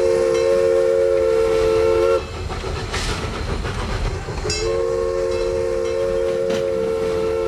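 Toy train's horn sounding a steady three-note chord in two long blasts: one held for about two seconds, then after a short break another of about three seconds. Rail clatter runs underneath.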